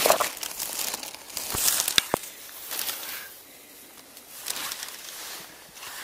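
Dry pine needles and leaf litter crunching underfoot, with clothing brushing against the microphone, in irregular rustling bursts. Two sharp clicks come about two seconds in.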